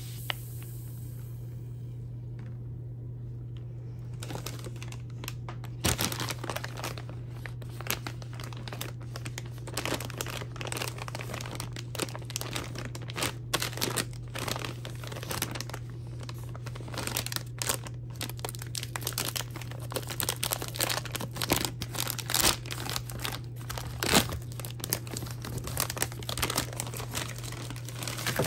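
Plastic candy bag of wrapped lollipops crinkling and tearing as it is handled and opened, with dense irregular crackles from about four seconds in. A steady low hum runs underneath.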